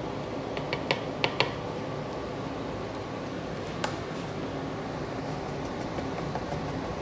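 Steady hum of a fan in a small room, with a quick run of light clicks and taps about a second in and one more sharp tap near the four-second mark.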